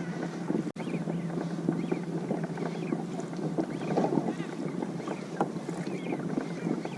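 Water sloshing and splashing against a kayak's hull on open water, with wind on the microphone. The sound drops out for an instant about three quarters of a second in.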